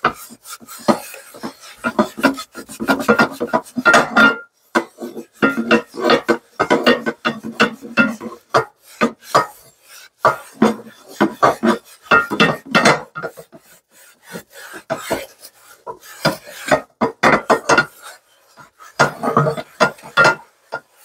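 Scrub sponge scrubbing a soapy cast iron skillet to loosen stuck-on cheese and meat bits: rasping strokes in quick bursts with short pauses between them.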